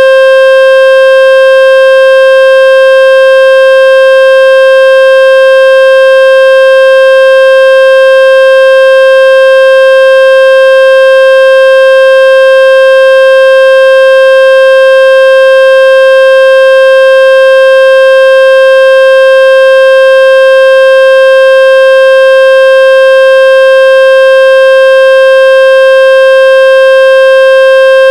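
Loud, steady electronic tone rich in overtones, held at one unchanging pitch throughout: a speaker-cleaning tone played to shake water out of a phone speaker.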